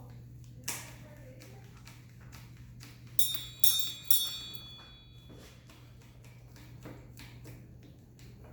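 Metal tools or parts clinking during hand work: three sharp strikes about three seconds in, each leaving a brief metallic ring, with scattered lighter taps over a steady low hum.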